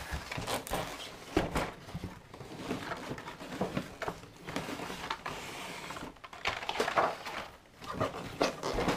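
Cardboard packaging being handled: a box shifted aside and a cardboard display tray of carded toy cars slid out and set down, with irregular scrapes, rustles and knocks.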